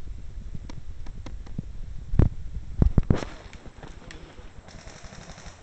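A string of sharp clicks and heavier knocks over a low rumble of wind and movement on the microphone, the loudest knocks coming about two and three seconds in; after that it settles to a quiet hiss.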